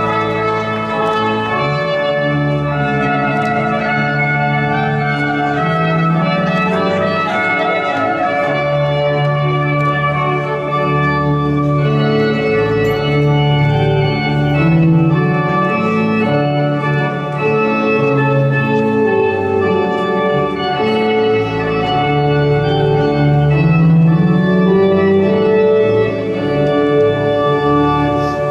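Organ music: sustained chords that change every second or two.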